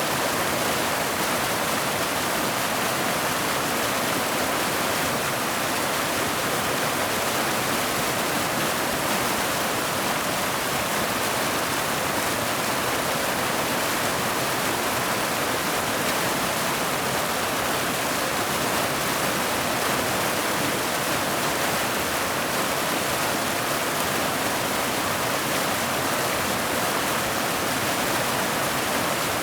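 Mountain waterfall cascading over boulders into a pool: a steady, even rush of falling water that stays at the same level throughout.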